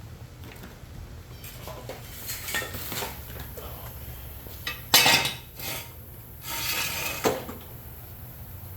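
Metal hand tools clinking and clattering against each other, a series of separate knocks and clinks, the sharpest about five seconds in and another a couple of seconds later, with a short scrape between.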